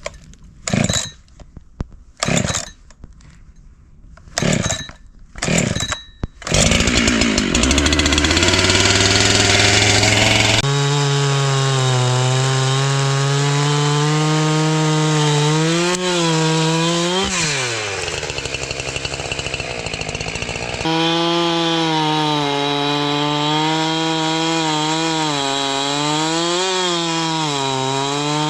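A few short rasping sounds, then a chainsaw starts about six seconds in and runs loud at high speed, its pitch dipping and recovering as it works through wood during log milling.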